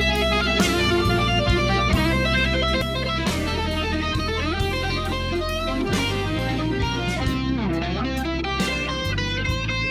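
Background music led by electric guitar, with a steady bass line and quick plucked notes.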